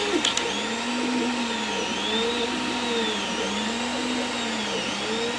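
CR-10 3D printer running a print: its stepper motors whine in repeated rising-and-falling sweeps, about one a second, as the print head speeds up and slows down. A steady cooling-fan hiss runs underneath.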